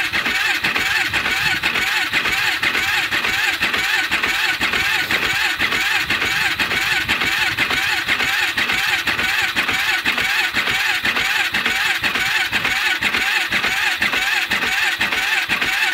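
Polaris Sportsman 500 H.O. ATV's single-cylinder engine being cranked by its electric starter in a steady, fast rhythm for about sixteen seconds without firing. It is cranked with no choke on the original battery, which keeps it turning strongly. The cranking cuts off abruptly at the end.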